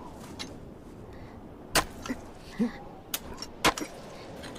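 Swords striking and chipping at hard ice: three sharp strikes, about a second into the second half and then two close together near the end.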